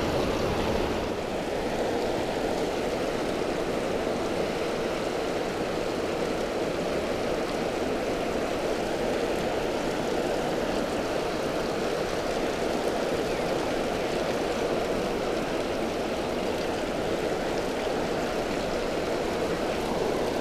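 Water pouring through a dam spillway: a steady, unbroken rush with no changes.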